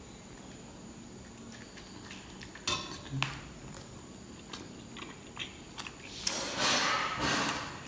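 A man eating with his fingers: a couple of sharp clicks and small chewing sounds, then a louder rustling hiss lasting about a second near the end.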